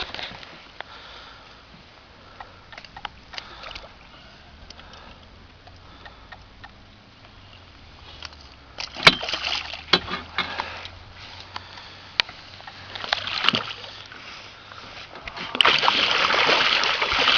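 Water splashing and sloshing around a small fishing boat, in short bursts about nine and thirteen seconds in and loudest and most continuous near the end, with small knocks between.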